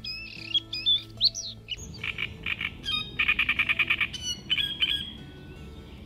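Bluethroat singing a quick, varied song of short whistled and buzzy phrases. About two seconds in it gives way to a different songbird's song of repeated chattering notes building into a fast trill, which stops about five seconds in.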